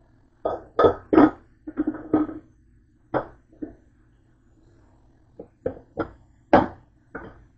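Slow cooker's glass lid and metal pot clattering and knocking together as they are handled, in a string of short, sharp knocks with a pause in the middle, over a faint low hum.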